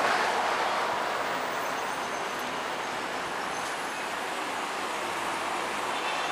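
Street traffic noise: a vehicle passing close by is loudest at the start and fades over the first two seconds, leaving steady traffic noise.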